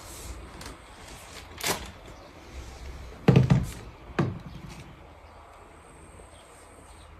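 A few sharp knocks and clicks with no motor running, loudest in a quick cluster about three and a half seconds in, as the plastic body and parts of a cordless stick vacuum are handled.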